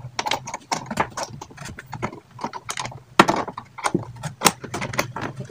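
Metal C-clamp of a scissor-arm microphone stand being fitted onto an edge and its screw turned to lock it tight: irregular clicks, knocks and scrapes of metal.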